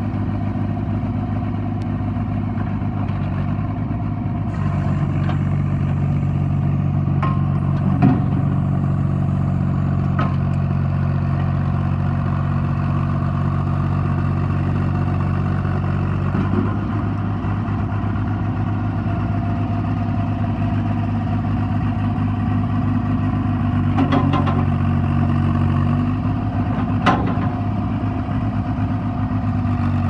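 John Deere 350 crawler loader backhoe's engine running, its speed stepping up about five seconds in, dropping back near the middle and rising again near the end. A few sharp knocks sound over it as the machine works and moves.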